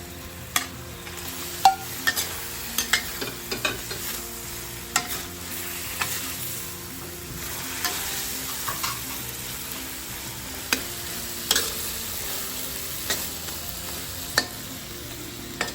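Prawns sizzling in a wok in a soy-sauce braising liquid over high heat, with a spatula knocking and scraping against the wok at irregular moments as they are stirred.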